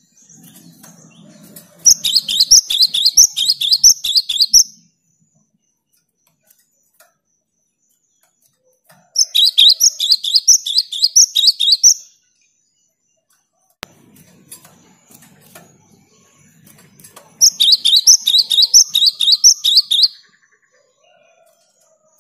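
Gelatik batu (cinereous tit) singing three loud phrases of about three seconds each, with pauses of several seconds between them. Each phrase is a fast run of repeated high, sharp notes.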